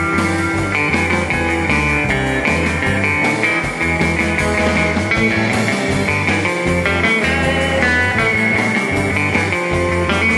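Instrumental surf rock: electric guitar over bass and drums driving a steady, even pulse, the straight eighth-note surf beat.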